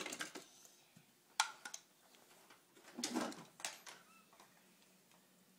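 Large plastic LEGO Duplo bricks clicking and knocking together as they are handled and dropped in a plastic bin: a few scattered sharp clacks, with a short rattling clatter about three seconds in.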